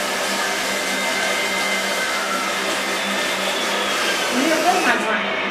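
A small electric motor running steadily with a whirring noise and a constant low hum. A few brief rising sounds come near the end.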